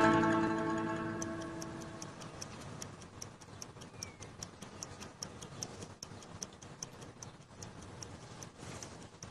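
Plucked-string music fades out over the first two seconds. Then a clock ticks evenly, about three ticks a second.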